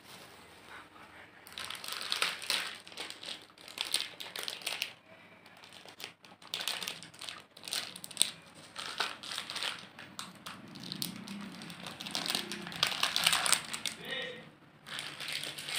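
Clear plastic wrapping and bubble wrap crinkling by hand in repeated bursts, starting about a second and a half in, as jewellery is unwrapped.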